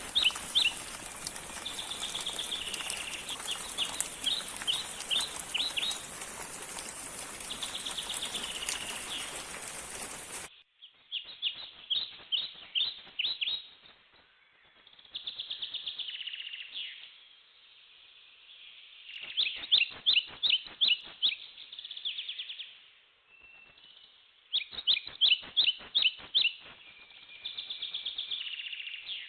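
A songbird singing repeated phrases, each a quick run of sharp downward-slurred notes followed by a buzzy note, about every four seconds. A steady background hiss cuts off abruptly about ten seconds in.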